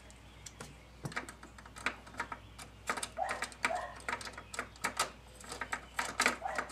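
Irregular sharp clicks and light metallic clatter from a ratchet and socket, in small clusters, as bolts are backed out under the dashboard.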